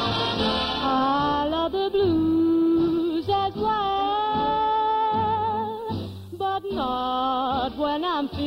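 Orchestra playing a boogie-woogie swing number, with a melody line holding long notes with vibrato over the band. It has the narrow sound of a 1949 radio recording.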